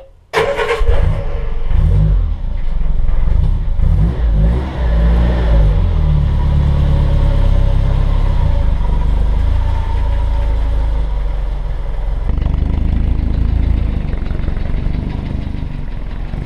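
Triumph Herald 13/60's four-cylinder engine starting about half a second in, then blipped up and down a few times before settling to a steady run as the car moves off.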